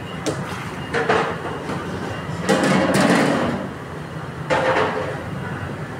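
Raw gulab jamun dough balls slid off a tray into a wide karahi of hot ghee, which sizzles and foams around them. A few short knocks come in the first second, and the biggest surge of sizzling comes about two and a half seconds in.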